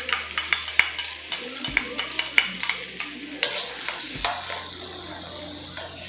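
Minced garlic and chopped onion sizzling in hot vegetable oil in a stainless-steel wok, with a metal spatula scraping and clinking against the pan as they are stirred; the clinks come thickest in the first half.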